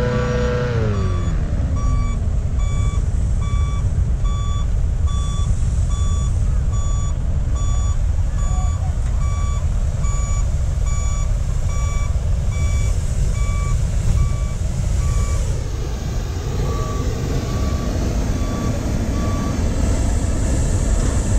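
A vehicle's reversing alarm beeping steadily, a bit under two beeps a second, over the steady roar of a hot air balloon's burner firing and a low rumble. At the start, an engine's pitch falls away as it winds down.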